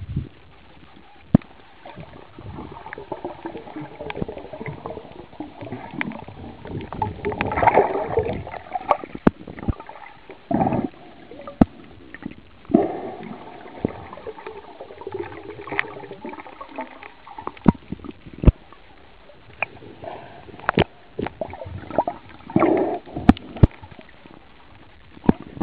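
Water heard from a microphone under the sea surface: gurgling and sloshing swells with many scattered sharp clicks and knocks.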